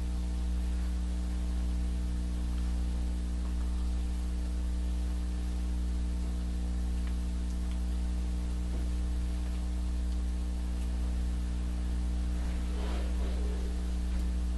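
Steady electrical mains hum with a faint hiss, no speech; a faint brief rustle about thirteen seconds in.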